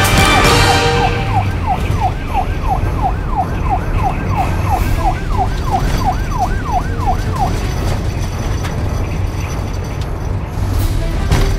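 Police siren sound effect: a quick rising-and-falling yelp, repeating about three times a second, over a steady low rumble. It stops after about seven seconds, and a sharp hit comes near the end.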